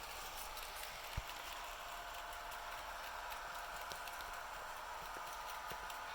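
HO-scale model diesel locomotive running on track: a steady electric motor and gear whine, slightly wavering in pitch, with many light irregular clicks from the wheels on the rails and one low thump about a second in.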